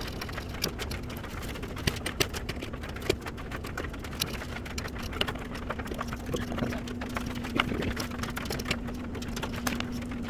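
Hand-tool work on a small piece of wood: irregular scraping strokes and light clicks and taps as a slot is widened for a sliding latch bar. A faint steady hum joins about six seconds in.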